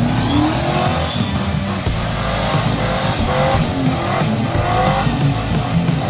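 Toyota Tacoma pickup with a swapped-in Chevy 5.3 V8, revving hard in repeated rising surges as its tires spin in deep snow, clawing up out of a rut.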